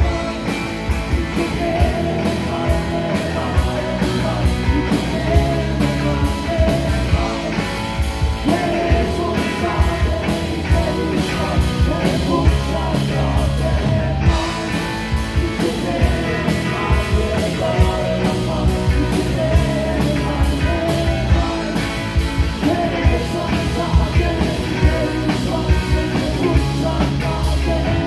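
Live rock band playing electric guitars, bass guitar and drums, with a male lead vocal in parts.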